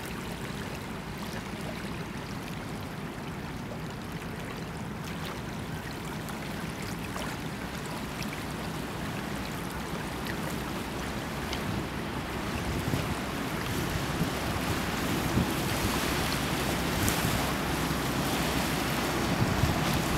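Water rushing and splashing at an 81-metre motor yacht's bow wave, mixed with wind on the microphone. It is a steady noise that grows louder through the second half as the yacht comes close.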